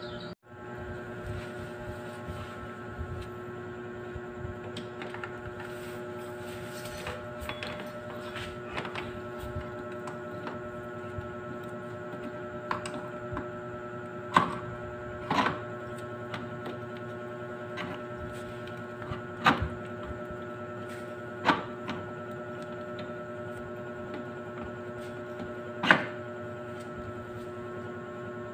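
A steady electrical hum made of several fixed tones, with a handful of sharp metallic clinks as the motorcycle's clutch parts and tools are handled while the clutch is fitted back onto the engine.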